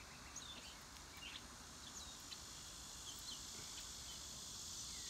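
Faint outdoor ambience: scattered short bird chirps over a steady, high-pitched insect chorus.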